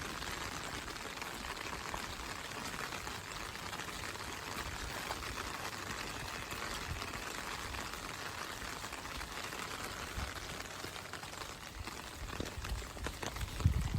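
Steady rain falling, a continuous even hiss, with a few low thumps near the end.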